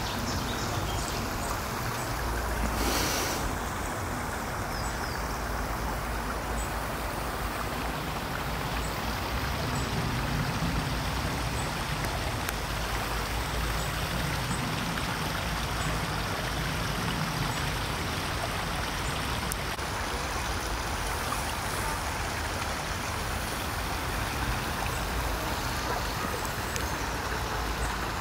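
A small stream running over rocks into a pond, making a steady rushing, trickling water noise. There is a brief louder rush of noise about three seconds in.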